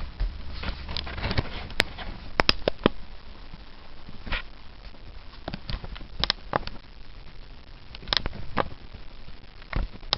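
Irregular clicks, taps and rustles of objects being handled close by, with a few sharper clicks about two to three seconds in.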